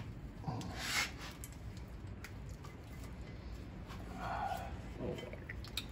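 Faint metal handling noises as a brake rotor is worked onto the arbor of an Accu-Turn 8922 brake lathe, with a man's brief grunt near the end.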